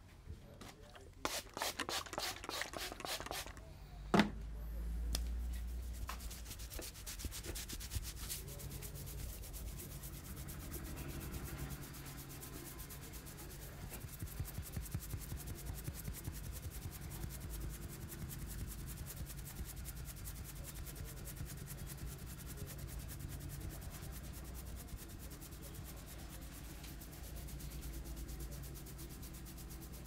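Fingers rubbing and scrunching vigorously through a client's hair during a head massage, making a dense crackling rustle of hair friction. A quick run of fast strokes comes in the first few seconds, with one sharp click about four seconds in.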